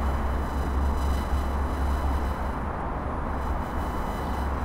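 Radio-frequency interference picked up by a Tascam DR-05X handheld recorder: a steady low hum with a row of faint, thin high-pitched tones above it, over a wash of city traffic noise.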